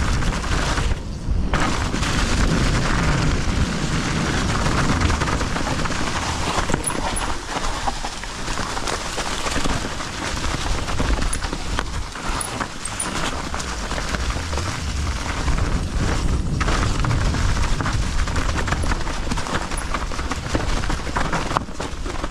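Mountain bike being ridden fast down a rooty dirt trail. Wind rushes over the microphone with a heavy rumble, over tyre noise and a constant clatter and rattle of the bike over roots and bumps. The noise eases briefly about a second in and again near the middle.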